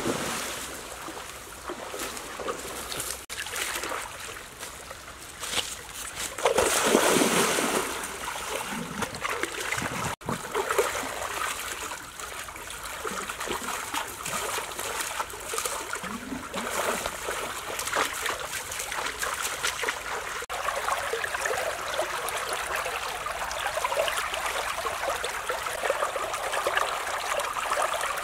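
Shallow stream water splashing and trickling around people wading and working in it, with a louder stretch of splashing about seven seconds in.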